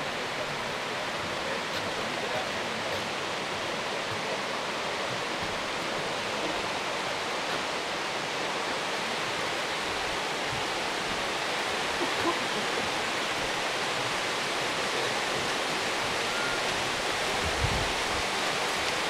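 Steady rushing of river rapids flowing beneath the bridge, with two brief knocks in the second half, the later one deeper.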